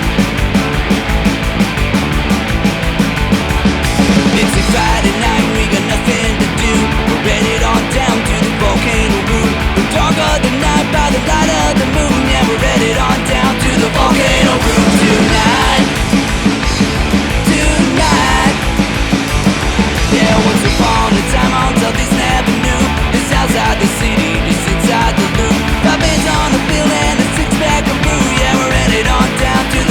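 Loud, steady punk-style rock music from a full band, instrumental with no singing.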